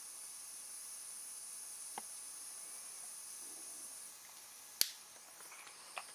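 Bernzomatic butane micro torch with a heating tip, hissing steadily as it toasts a cane reed's blades; the hiss drops off a little after four seconds in. Then a single sharp click, followed by a few light handling clicks near the end.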